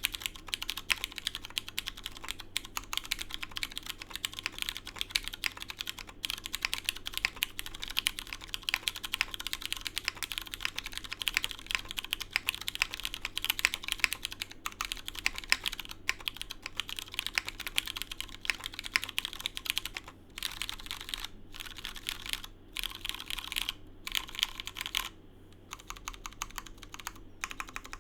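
Fast, continuous typing on a Kibou LamyTKL mechanical keyboard with lubed and filmed Cherry MX Hyperglide Brown tactile switches in a polycarbonate plate, O-ring mounted, with PBT keycaps. The keystrokes come in a dense stream, broken by a few short pauses in the last third.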